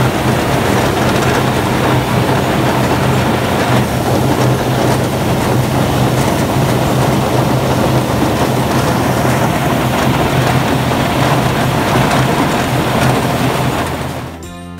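Golf ball washing machine running: a steady low hum under the dense rattle and splash of golf balls churning against each other in water-sprayed troughs. It fades out near the end.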